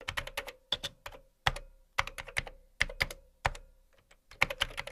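Typing sound effect: irregular runs of sharp keystroke clicks, some in quick clusters and some single, with short gaps between.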